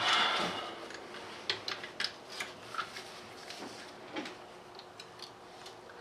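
Small metal clicks and taps from hand work on a diesel cylinder head with a valve spring compressor, as valve keepers, springs and valves are pulled out, after a brief scraping rush at the start.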